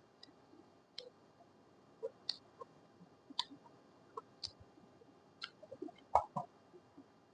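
Scattered light clicks and small knocks at irregular intervals, with a louder knock about six seconds in.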